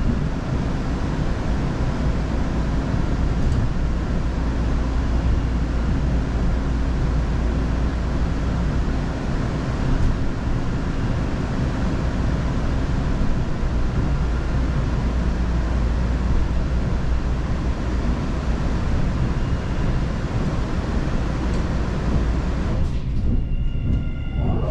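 MBTA Orange Line subway car running along the track, heard from inside: a steady rumble and rolling noise of the wheels on the rails. Near the end the hiss drops and a thin whine comes in.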